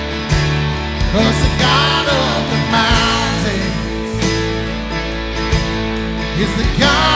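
Live worship band playing a slow contemporary worship song. A woman and a man sing over acoustic and electric guitar, an electronic drum kit and keys.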